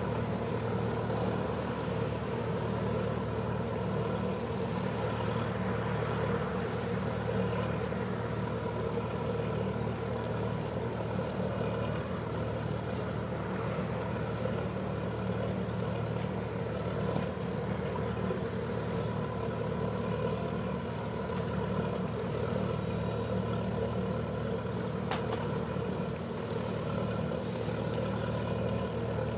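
Boat engine running steadily at low revs: a constant low hum that holds the same pitch and level throughout.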